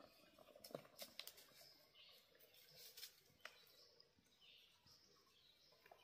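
Near silence: faint woodland ambience with a few scattered faint clicks and ticks.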